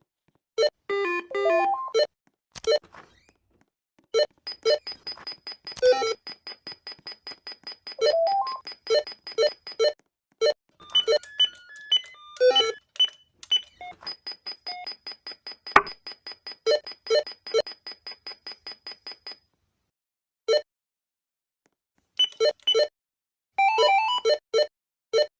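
Electronic beeps and short tone melodies from a Beward door intercom panel. There are single beeps, two long runs of even rapid beeps at about four to five a second, and sudden gaps of dead silence between the sounds.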